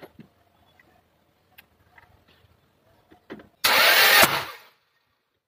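Toyota Hilux 2TR-FE 2.7-litre four-cylinder petrol engine turned over briefly by the starter with its spark plugs out for a compression test: a loud cranking whirr lasting under a second, about two-thirds of the way in. A few faint clicks come before it.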